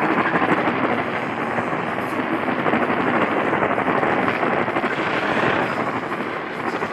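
Steady hiss of radio static from a weather-radio receiver, with no tone, voice or rhythm in it.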